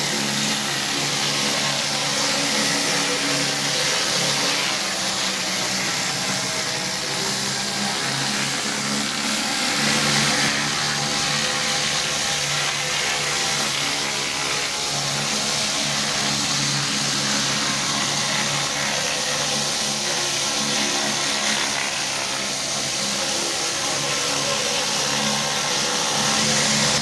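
Pressure washer running steadily: an engine hum under the loud hiss of the high-pressure water spray.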